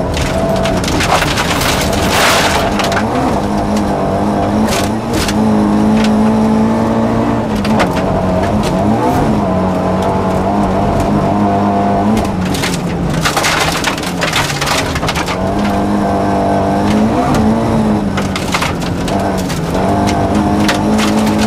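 Rally car engine heard from inside the cabin, pulling hard through the gears on a gravel stage, its note holding, climbing and dropping sharply at each shift and lift. Loose gravel and stones clatter against the underbody and wheel arches throughout.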